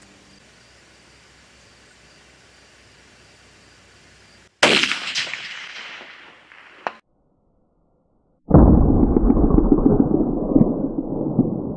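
A single cold-bore shot from a 6XC rifle with a clamp-on muzzle brake: a sharp crack about four and a half seconds in that dies away over about two seconds, followed by a short sharp knock. After a second of silence, a loud, dull rushing noise cuts in abruptly.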